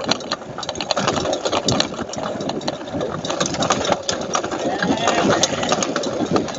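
Riding noise from a bike on a dirt trail: a steady, dense mechanical rattle.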